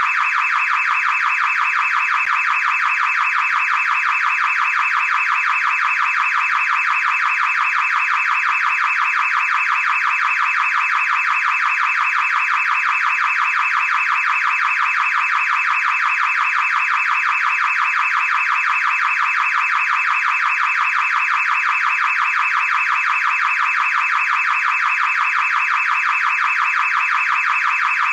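Car alarm siren sounding without a break: a loud, fast-warbling electronic tone that keeps going steadily.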